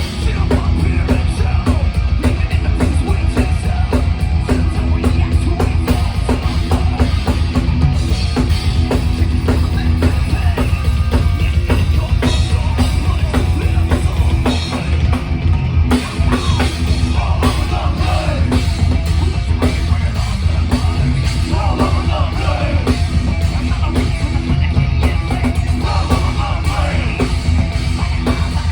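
Thrash metal band playing live at full volume: fast, dense drumming over heavy bass and guitars.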